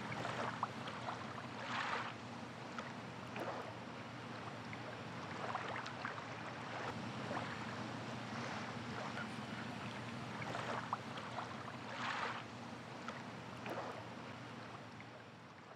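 A steady rushing outdoor noise, like wind or distant surf, with a few brief louder swells, beginning to fade out near the end.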